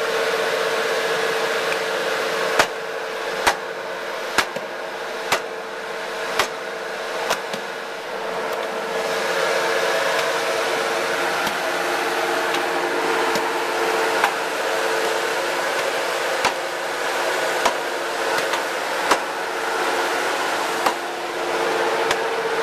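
Hydraulic log splitter running with a steady hum, with sharp cracks and knocks as the wedge forces a log apart. The cracks come about once a second for several seconds, then scattered ones follow later.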